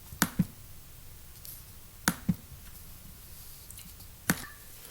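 Sharp metal clicks of a right-angle screwdriver working the screws of a shower door in a tight gap: two quick clicks near the start, two more about two seconds in, and one more about four seconds in.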